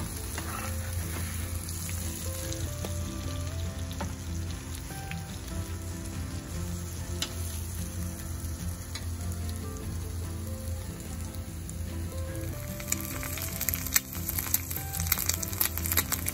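Slices of bread frying in a nonstick pan: a steady sizzle that grows louder with sharp crackling spits for the last few seconds. Soft background music with a slow melody plays underneath.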